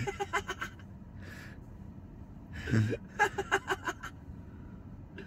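Stifled laughter, snickering in quick breathy pulses: a short burst at the start and another about three seconds in. A faint steady low hum runs underneath.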